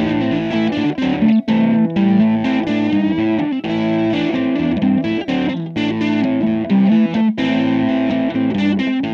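Background guitar music: a guitar riff played through effects, its notes changing continually, with a few short breaks.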